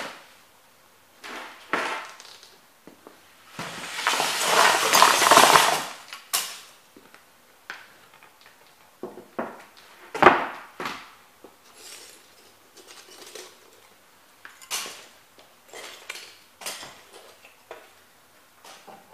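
Broken plastic pieces of crushed model train houses clattering into a cardboard box in one dense rattle lasting about two seconds, a few seconds in. Then scattered knocks and steps of rubber boots on a wooden floor, one sharp knock about ten seconds in.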